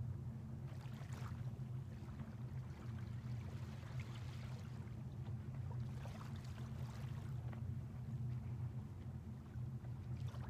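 Small waves lapping softly on a sandy shore, a few gentle washes over a steady low hum.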